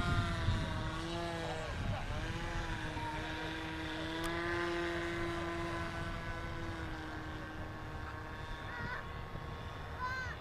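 OS 46AX two-stroke glow engine of a radio-controlled model airplane running in flight. Its pitch dips and climbs back about two seconds in, then holds fairly steady before slowly fading.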